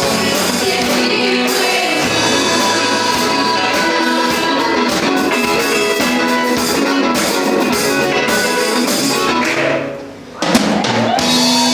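Live gospel band with singers, guitars, keyboards and drums playing a hymn in a large hall. About ten seconds in the music drops out for a moment, then comes back in with a sudden hit and a held chord.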